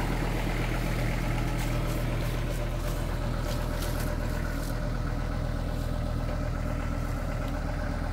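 Kubota GL46 tractor's diesel engine running steadily at a constant speed. Between about one and a half and five seconds in, a scattering of short, sharp clicks or cracks sounds over the engine.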